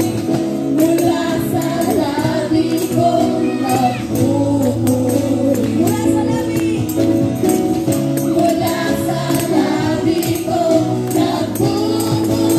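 Live Christian praise band amplified through a PA: several voices singing together over acoustic guitar and keyboard, with a steady shaken-percussion beat.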